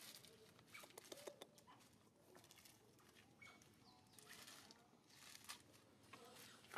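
Faint crinkling and crackling of a plastic snack wrapper as a macaque handles it and eats from it, with a few brief high squeaks.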